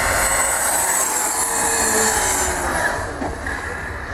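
Electric brushless RC truggy running at full speed on asphalt: a high motor whine over tyre rush, dropping slightly in pitch and fading as the car pulls away.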